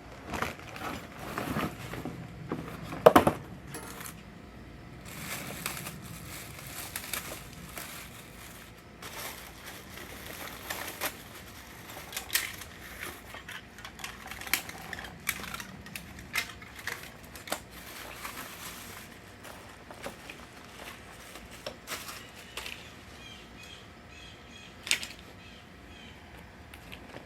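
Bicycle parts and packaging being handled: scattered clicks, small knocks and rustling, with one sharper knock about three seconds in.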